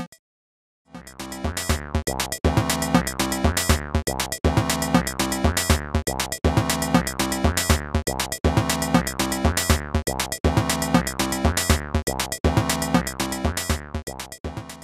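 Chiptune-style electronic beat of square-wave drum and bass sounds sampled from an old digital square-wave keyboard, with a retro video-game sound. It starts about a second in after a short gap, runs as a steady rhythmic pattern, and stops just before the end.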